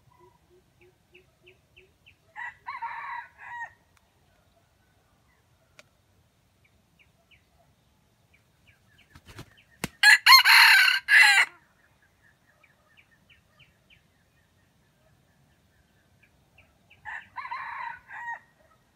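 Red junglefowl roosters crowing: three crows, each lasting a second or so, the middle one about ten seconds in much louder and closer than the other two.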